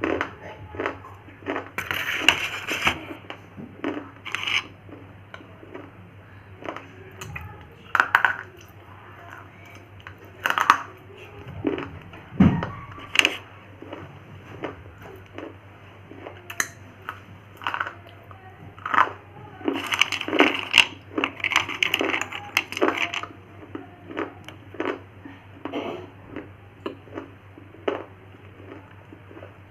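Thin slate pencils being bitten and chewed: irregular sharp crunches and snaps, with busier flurries of chewing about two seconds in and again around two-thirds of the way through.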